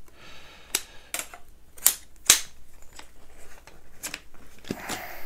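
Aluminum tent-style poles of a lightweight backpacking chair frame clacking as the shock-corded sections are snapped together and fitted into the hub: about half a dozen sharp clicks at uneven intervals.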